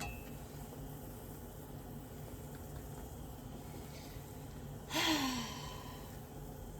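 A woman sighs once, about five seconds in: a breathy exhale that falls in pitch, over a faint steady background hiss.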